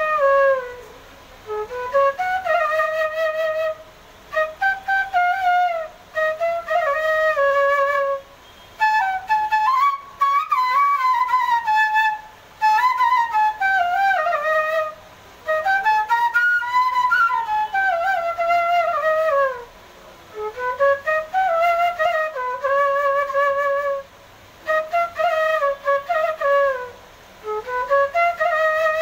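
Solo bamboo transverse flute (bansuri) playing a rural Bengali folk tune. It plays in phrases of a few seconds, each ended by a short pause for breath, with slides and quick ornaments between notes.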